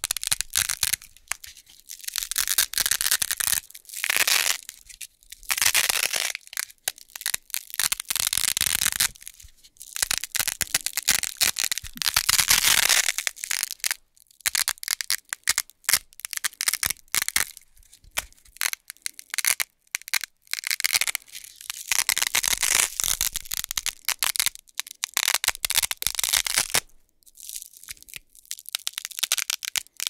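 Hook-and-loop (Velcro) tape being peeled apart by hand, the hook side ripping off the loop side in a run of crisp, crackling tears, each lasting a second or two, with short pauses between.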